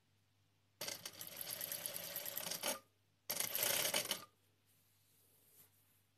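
Industrial sewing machine stitching binding onto fabric in two runs: a longer one of about two seconds, then, after a short pause, a shorter burst of about a second.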